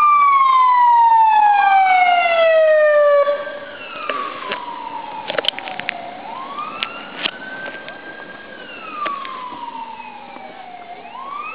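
Ambulance siren wailing. A long falling tone comes first; then, after a sudden drop in loudness about three seconds in, the siren turns to a slower rise and fall in pitch, with a few sharp clicks in the middle.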